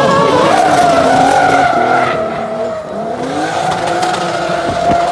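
Drift car sliding with its tyres screeching and its engine revving high; the revs dip and climb again about three seconds in.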